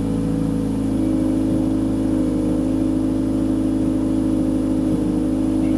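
Car engine running steadily at a constant speed, a low, even hum with no revving.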